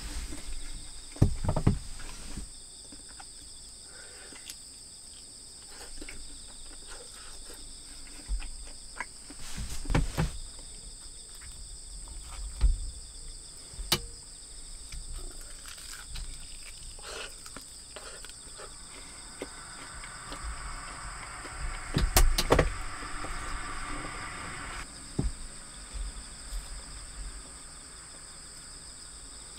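Crickets trilling steadily and high, with scattered soft knocks and rustles of food and chopsticks being handled on a wooden table.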